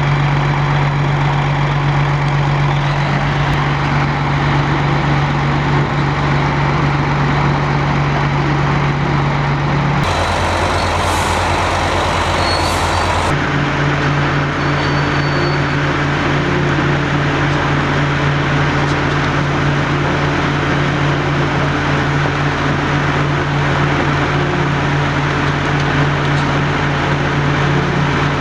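Heavy diesel engine running steadily at a constant pitch. Its sound changes for about three seconds around ten seconds in, then returns to the same steady running.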